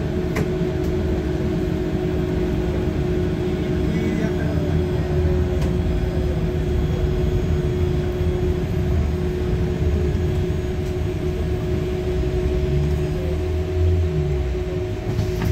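Interior of a Mercedes-Benz O405N2 city bus while driving: the diesel engine's steady drone and low rumble, with a constant whine running through it.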